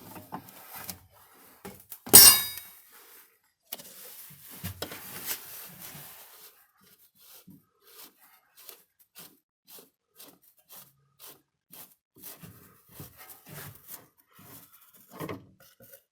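Chery Tiggo's inner steering tie rod being unscrewed by hand from the steering rack: a sharp metallic clink about two seconds in, some metal rubbing, then a run of small light clicks about twice a second.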